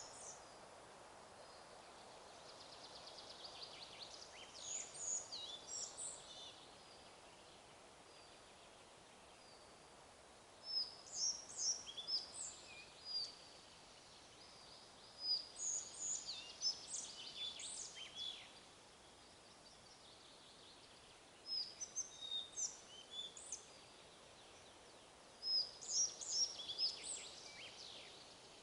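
A songbird singing short, bright chirping phrases about every five seconds, over a steady faint hiss of wind in the forest.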